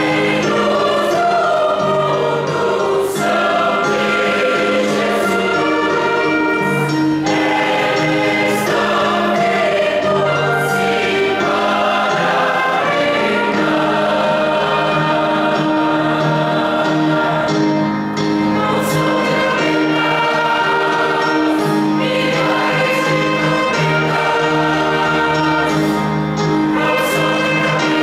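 Church choir singing a gospel hymn in several-part harmony, holding chords that change every second or two.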